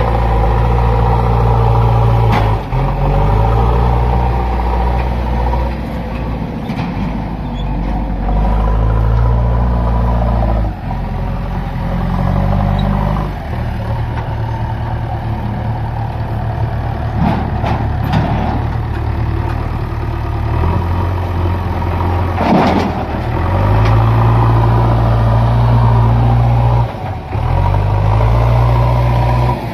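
JCB backhoe loader's diesel engine running under load, its pitch rising and falling again and again as the hydraulics work. There are a few sharp clanks along the way.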